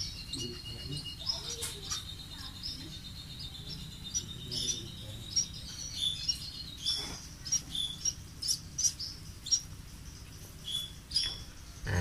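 Baby bird's high begging chirps and tweets as it is hand-fed. A thin, held high note runs for about the first two seconds, then short chirps come every second or so through the rest.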